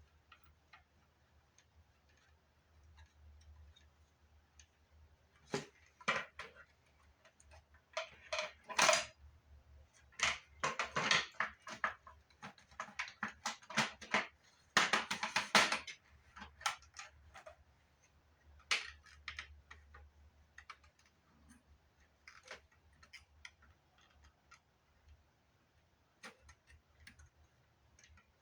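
Clicks, taps and short rattles of hands and tools working the plastic case of a Fostex MR-8 multitrack recorder as it is taken apart, busiest in a run of dense clattering in the middle, then a few scattered ticks.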